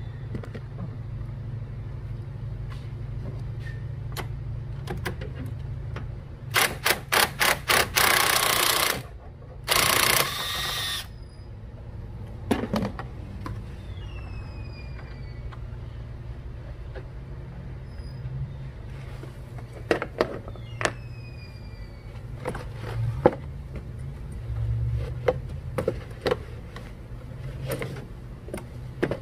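Ratchet wrench on an extension and 10 mm socket working the battery hold-down bracket bolt: two bursts of rapid clicking, about seven and ten seconds in, then scattered clinks and taps of tool and metal parts, over a steady low hum.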